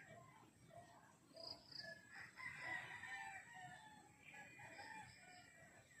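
Faint domestic chickens: a rooster crowing about two seconds in, with scattered clucks before and after.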